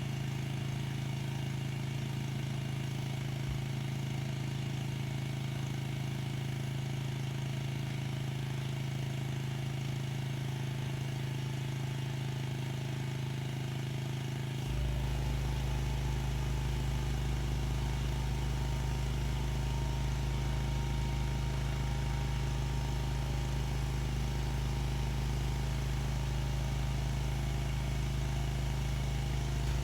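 Pressure washer running steadily with a strong hum. About halfway through, a deeper low hum joins in and the sound gets a little louder.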